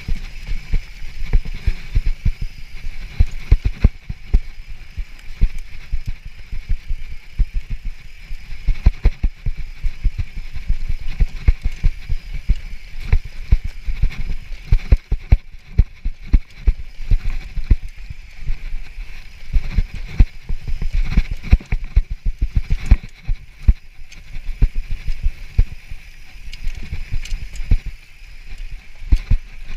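Mountain bike rattling down rough, rocky singletrack: a constant run of irregular thumps, knocks and clatter as the tyres and suspension hit rocks and roots, over a steady high hiss.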